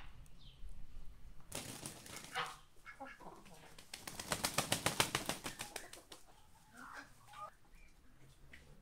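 Muscovy duck flapping its wings: a quick run of rapid wingbeats lasting about two seconds, starting about four seconds in.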